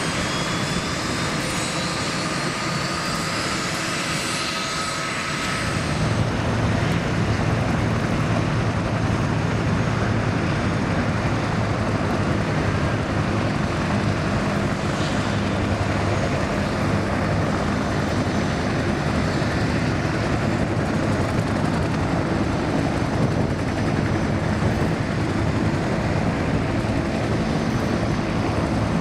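Several military helicopters' turbine engines running on the ground, with thin rising whines. About six seconds in, a louder, deeper steady drone of engines and rotors takes over and holds.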